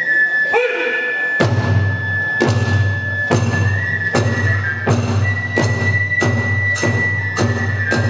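Kagura hayashi: a kagura bue bamboo flute plays a long, high held melody while taiko drums come in about a second and a half in, striking a steady beat that gradually quickens.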